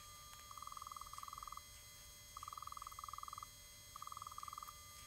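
Disk drives working through a disk backup, sped up ten times: a faint high-pitched pulsing buzz that comes in pairs of short bursts about every two seconds.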